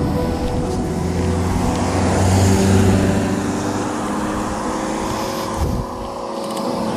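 A motor vehicle passing close by, loudest about two and a half seconds in, then fading.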